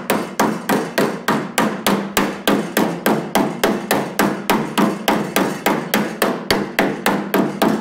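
Door-skinning hammer tapping the folded flange of a sheet-metal car door skin against a hand-held dolly, in a steady, even rhythm of about four light strokes a second, each with a short metallic ring. The strikes are working the hemmed edge down flat onto the door frame.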